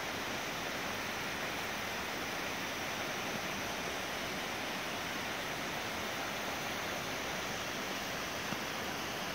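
Waterfall running: a steady, even rush of water cascading down a bare rock face.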